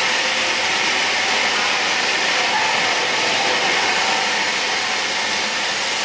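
FTTH drop-cable production line running, giving a steady machine hiss with no single event standing out.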